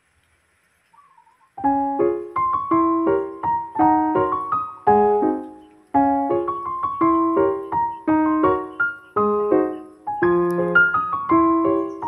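Solo piano music, starting about a second and a half in after a brief near-silence: a melody of struck notes over chords, each note fading away after it is played.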